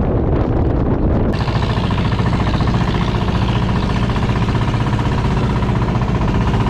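Wind buffeting the microphone, then about a second in a boat's engine running steadily at an even pitch.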